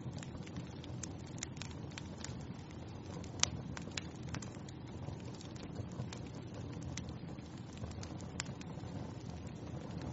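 Wood fire burning in a fireplace: a steady low rumble of flames with irregular sharp crackles and pops, one louder pop about three and a half seconds in.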